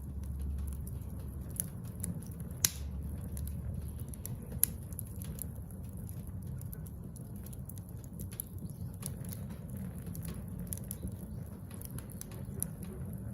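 Wood fire of scrap lumber crackling, with scattered sharp pops over a low steady rumble; the loudest pop comes about two and a half seconds in.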